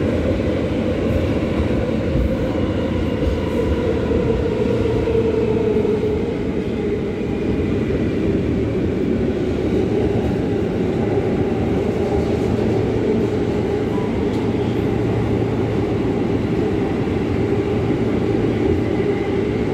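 New York City subway car on the L line running steadily, heard from inside the car: a continuous loud rumble of wheels on rails and running gear, with a faint whine above it.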